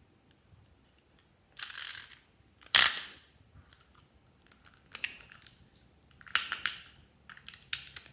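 Slime being squeezed and stretched by hand, making about five short bursts of crackling, clicking pops, the loudest a sharp snap about three seconds in.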